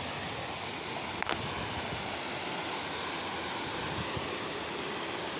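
Water pouring over a small masonry dam and cascading down rocks: a steady rushing. A brief click about a second in.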